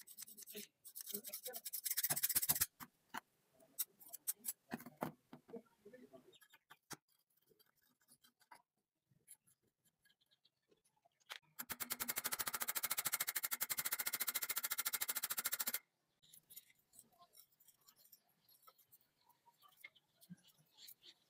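Rusty steel scissor blades scraping against each other as they are worked open and shut, growing louder, followed by light clicks of metal being handled. About halfway through, a loud, fast, even buzzing rattle runs for about four seconds and stops abruptly.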